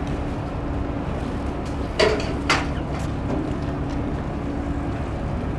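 Boat engine running steadily, a low rumble with a faint steady hum. Two sharp knocks about half a second apart come about two seconds in.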